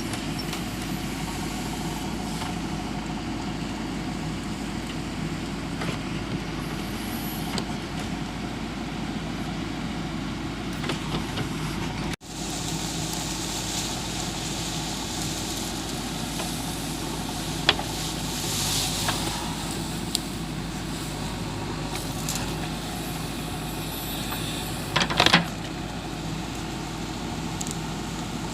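JCB 3DX backhoe loader's diesel engine running steadily under work, with a few sharp knocks, the loudest a short cluster near the end.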